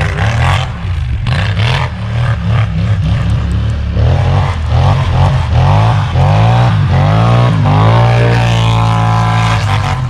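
Polaris Scrambler 1000 ATV's parallel-twin engine through a new RJWC Krossflow dual exhaust, revved in a string of rises and falls, then held at a steady high pitch near the end, over a constant low drone.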